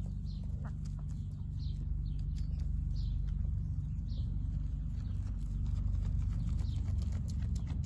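Goat kid tearing and chewing fresh grass close to the microphone: a quick run of small crisp snaps and crunches over a steady low rumble. Short falling high notes, like a bird's call, repeat faintly about once a second.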